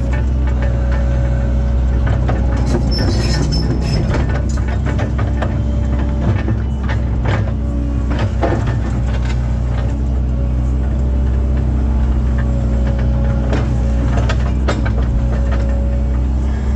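Link-Belt excavator running steadily under load, with a constant engine drone and a slightly wavering hydraulic whine. Scattered clunks and scrapes come as the bucket works the gravel and soil of the roadbed.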